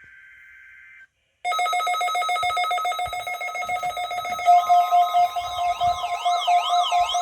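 The faint screech of a NOAA Weather Radio SAME data header cuts off about a second in. After a brief gap, an electronic alert alarm starts loud: a rapidly pulsing beep, joined about three seconds later by a second, warbling tone. This is weather radio receivers alarming for a required weekly test.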